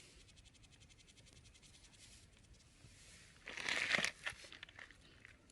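Dry material being rustled and crumpled: a fast, fine crackle for the first two seconds, then a loud crumpling burst about three and a half seconds in, followed by a few scattered clicks.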